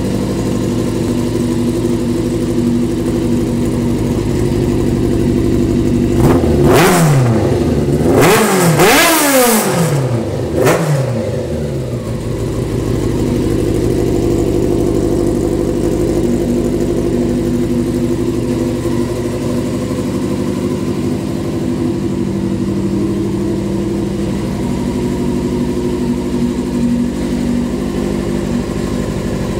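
1987 Honda Hurricane 600's big-bore inline-four engine through a Muzzy full race exhaust, idling steadily. Between about six and eleven seconds in it is revved a few times in quick succession, then drops back to idle.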